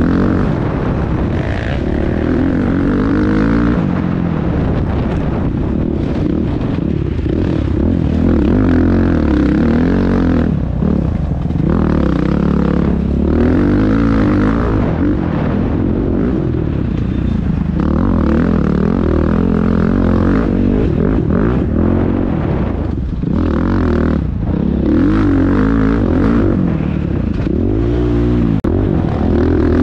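Dirt bike engine heard on board, revving up and down as the bike accelerates and backs off along a bush trail, its pitch rising and falling again and again.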